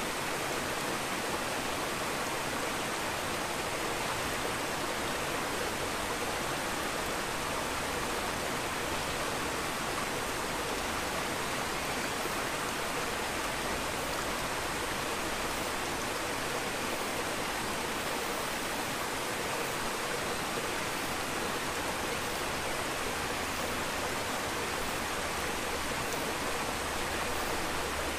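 Steady rushing hiss of aquarium water moving and air bubbling, even and unbroken throughout.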